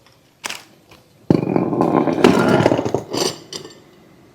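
Air tool running in one burst of about two seconds, starting suddenly about a second in, with a short knock just before; it is working on the front shock absorber's top mount.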